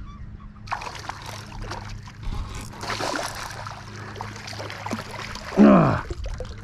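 A hooked smallmouth bass thrashing and splashing at the surface as it is brought to a landing net, with water sloshing in uneven bursts. Near the end comes a short, loud exclamation from the man, falling in pitch.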